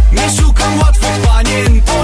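Disco polo dance music: a steady kick-drum beat about twice a second under a melody.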